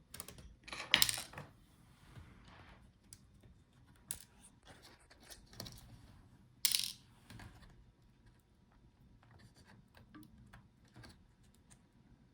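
Scattered small clicks, taps and short scrapes of hands working on a laptop's internal parts and screws, with two louder scraping handling noises about a second in and near seven seconds.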